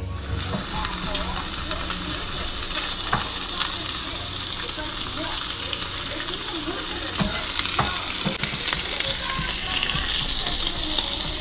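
Bacon sizzling and crackling with small pops in a ridged grill pan as its fat renders. The sizzle grows louder near the end.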